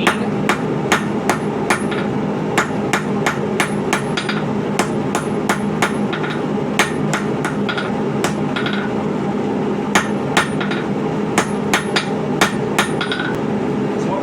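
Hand hammer striking hot coil-spring steel on an anvil, drawing out and tapering the bar: about two to three ringing blows a second with a couple of short pauses, over a steady hum.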